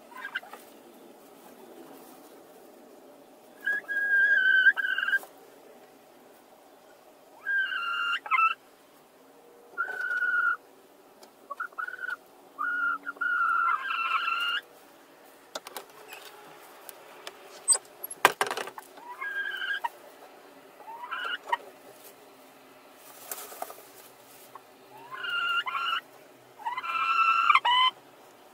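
Laying hens calling in drawn-out, whining squawks, about nine calls with pauses between them, as two hens crowd into the same straw nest box to lay. A single sharp knock sounds about two-thirds of the way through.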